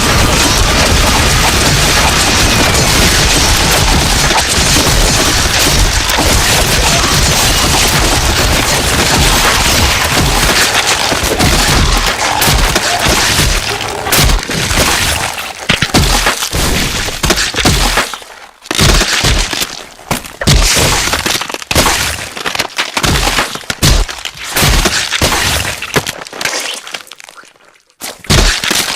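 Loud, heavily distorted noise sound effect: a dense, even crackling hiss for roughly the first half, then breaking up into choppy cracking bursts separated by short gaps.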